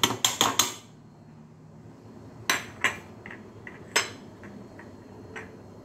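Metal spoon clinking against a plate and a steel mixer-grinder jar while seeds are scraped into the jar: a quick run of sharp clicks in the first second, then single clinks about two and a half, three and four seconds in.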